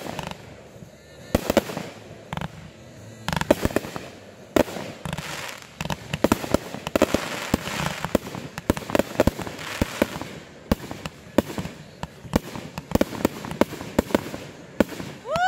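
Aerial fireworks bursting: a run of sharp bangs, at times several a second, with a spell of dense crackling in the middle.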